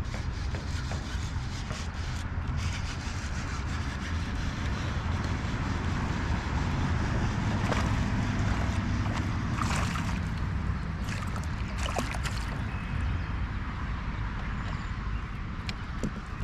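Water sloshing and trickling around a kayak on the water, over a steady low wind rumble on the microphone, with a few short sharp sounds partway through.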